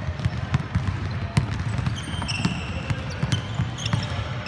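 Basketball game on a hardwood court: the ball bouncing and running footsteps thudding on the floor. Sneakers squeak sharply several times in the second half.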